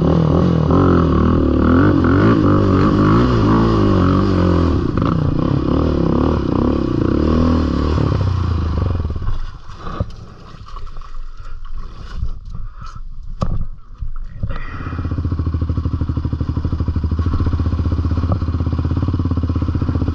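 Yamaha Raptor ATV engine revving and working hard through mud for the first eight seconds. It then drops away for about five seconds, leaving scattered scrapes and knocks. From about fifteen seconds in the engine runs steadily again.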